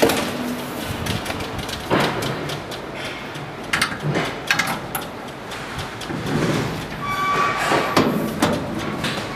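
Metal elevator landing-door panel clattering and scraping as it is handled and slid into the aluminium sill track, with irregular knocks and clicks.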